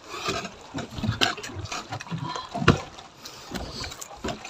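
Scattered knocks and bumps on a small fishing boat's hull and deck while a handline is hauled in on a hooked blue marlin, with two louder knocks a second or so in and again near the middle.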